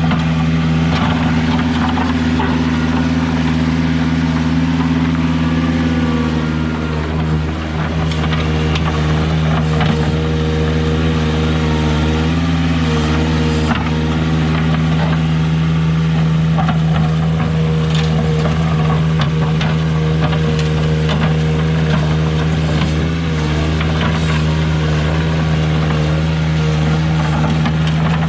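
Ventrac 4500Z compact tractor's engine running steadily under load as its front bucket works through river rock, with scattered clacks of stones knocking together.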